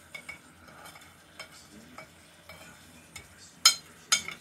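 Metal spoon scraping and clinking against a ceramic plate while stirring a dry seasoning mix, light taps throughout and two sharp clinks near the end. Steaks sizzle faintly in a grill pan underneath.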